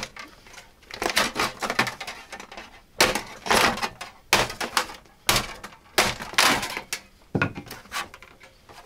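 Plastic housing of a Philips dock speaker being pried and struck apart with a hand tool: a string of irregular sharp cracks, snaps and scrapes as the case is forced open.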